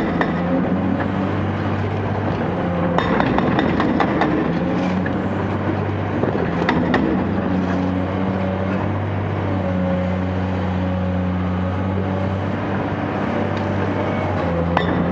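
Caterpillar 385C excavator's diesel engine running under load, its pitch shifting up and down as the machine works. A few sharp knocks come through, about three, five and seven seconds in, with a faint high whine rising and falling in the background.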